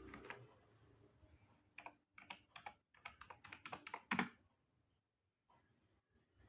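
Typing on a ZIFRIEND ZT104 gasket-mount mechanical keyboard with silent switches: a quick, faint run of keystrokes starting about two seconds in, ending in one louder stroke.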